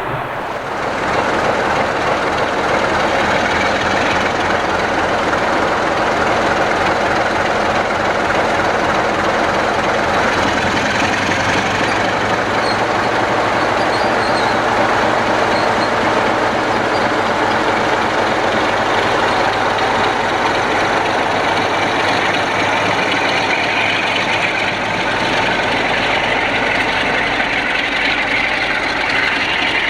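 A train going by, its noise loud and steady after swelling up about a second in.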